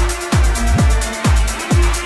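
Electronic background music with a steady kick drum on every beat, a little over two beats a second, and a fast ticking hi-hat over a held synth note.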